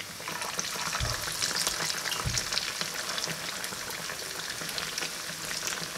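Patties of ground cooked-rice dough deep-frying in hot oil: a dense crackling sizzle that swells just after a fresh patty is slid into the pan. A fork pushes the patties about, with two soft knocks in the first few seconds.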